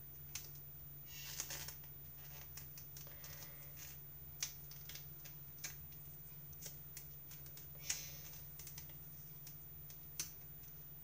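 Faint handling noise of double-sided tape being rolled around a wooden kebab stick by hand: scattered small clicks and taps, with a brief rustle of the tape about a second in and again near the end.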